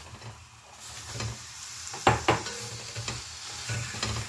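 Chicken breast pieces going into a hot pot of fried onion and spice masala, which starts sizzling about a second in, with a spoon knocking and scraping against the pot as it is stirred; the loudest knocks come about two seconds in.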